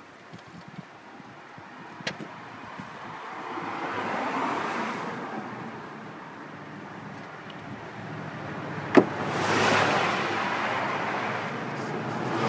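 Two vehicles passing by, each a swell of road noise that builds and fades away, with a sharp click about nine seconds in.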